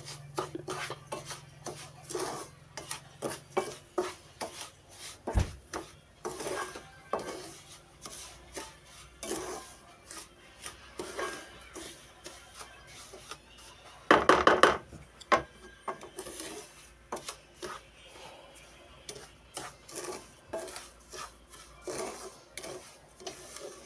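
Wooden spatula stirring and scraping dry, crumbly semolina against a nonstick pan as it roasts in butter, in short repeated strokes, a couple a second. About two-thirds of the way through comes a louder clatter lasting about a second.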